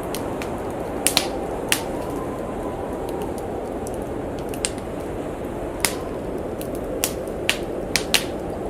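Wood fire crackling, with sharp irregular pops about once a second over a steady low rush of blizzard wind.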